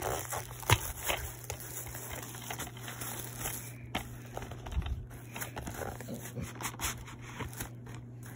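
Clear plastic shrink wrap being pulled off a DVD case: irregular crinkling and crackling of the film, with one sharp crackle less than a second in.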